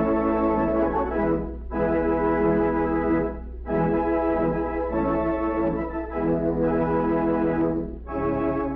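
Organ music playing held chords, each broken off by a brief gap, about two, three and a half and eight seconds in, over a steady low hum.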